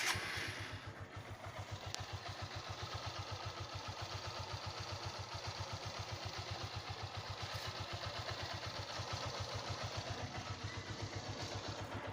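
150 cc single-cylinder motorcycle engine idling steadily with even exhaust pulses, just rebuilt with a new connecting rod and new crankshaft and balancer bearings. It comes in suddenly at the start and holds a constant speed throughout.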